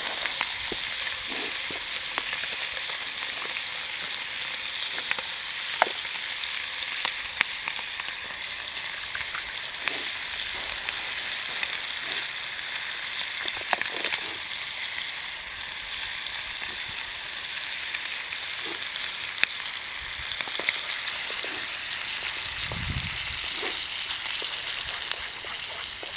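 Food sizzling in a frying pan over a camp stove or fire: a steady hiss with scattered sharp pops and crackles.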